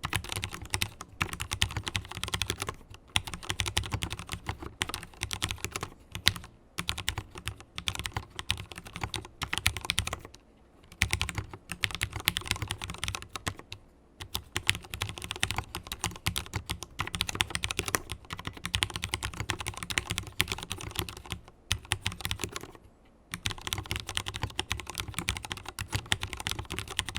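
Continuous fast typing on a mechanical keyboard with fully lubricated Cherry MX Black linear switches: dense key clacks with brief pauses about ten seconds in and again near twenty-three seconds.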